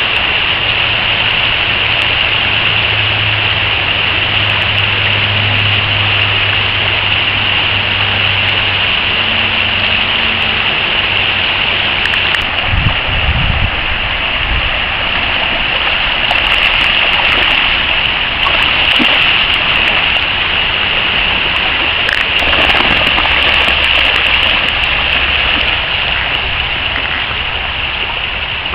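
Shallow, fast river water rushing steadily over rocks: a loud, even hiss of flowing water. A brief low rumble comes near the middle.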